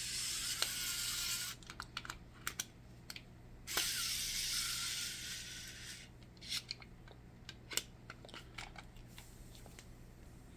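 Mini electric precision screwdriver running twice, about two seconds each time, with a steady high-pitched whir. Between and after the runs come light clicks and taps as the tool and its plastic kit are handled.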